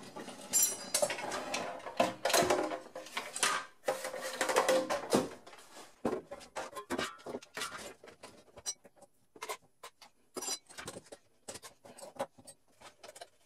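Rigid plastic housing parts of a Keurig K40 coffee maker clattering and scraping as the outer shell is pulled off the internal frame. The rattling is dense for the first five seconds or so, then gives way to scattered separate clicks and knocks.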